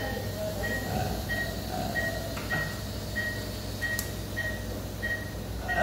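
Patient monitor beeping with each heartbeat, about three short even beeps every two seconds, over a steady background hum of equipment. A single sharp click about four seconds in.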